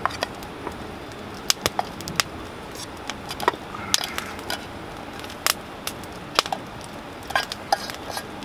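Wooden spatula scraping and knocking cooked rice out of an aluminium mess tin into a wooden bowl: scattered sharp clicks and taps over a steady low hiss.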